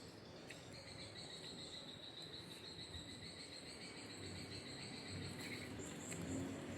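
Insect trilling steadily at a high pitch, starting just under a second in.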